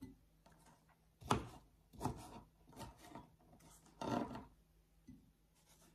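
Kitchen knife dicing a soft pear into cubes. There are about five separate quiet cuts, each knocking through onto the board beneath.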